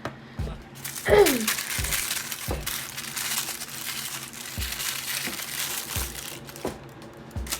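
Plastic packaging crinkling and crackling as small doll accessories are unwrapped by hand, with soft handling thumps and a short falling squeak about a second in.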